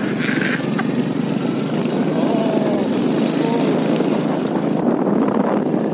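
Small motorbike engine running as the bike rides off, with wind rumbling on the microphone.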